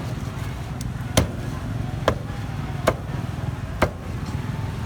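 Cleaver chopping on a cutting board: four sharp chops, roughly one a second, over a steady low background hum.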